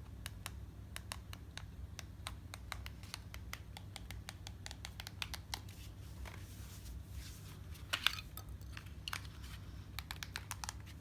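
Light, irregular clicking, about two or three clicks a second, with a brief louder scratchy rustle about eight seconds in, over a steady low hum.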